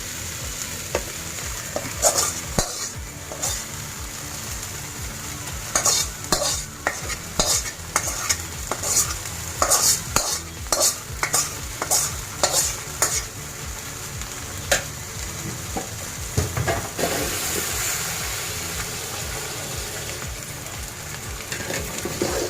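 Rice, lentils and potato pieces sizzling in hot oil in a pot, with a spoon repeatedly scraping and knocking against the pot as the mixture is stirred; the stirring strokes come thickest in the middle, then the sizzle carries on alone for a while.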